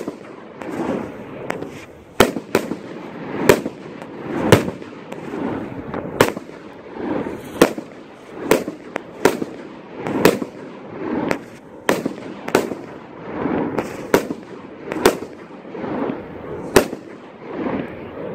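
A 16-shot consumer firework cake firing shot after shot, about one a second. Each shell goes up with a brief rushing sound and breaks with a sharp crack.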